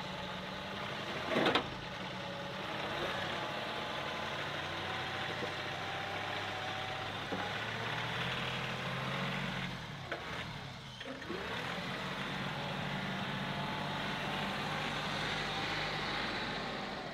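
John Deere 2038R compact tractor's three-cylinder diesel running steadily as it drives away from the dropped mid-mount mower deck, with one sharp knock about a second and a half in and a brief dip in engine sound around the middle.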